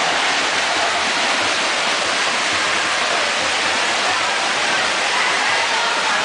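Swimmers' front-crawl arm strokes and kicks splashing in a pool, a steady wash of churning water.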